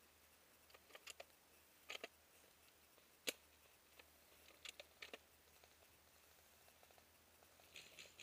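Near silence, broken by a few faint, short clicks and snaps, the sharpest about three seconds in.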